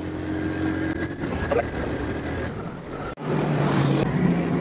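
Motorcycle engine running steadily while riding, with wind and road noise. About three seconds in the sound breaks off for an instant and comes back with a different, steadier engine note.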